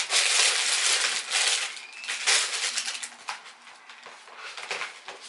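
Rustling and handling noise in irregular bursts, loudest over the first two to three seconds, then fainter.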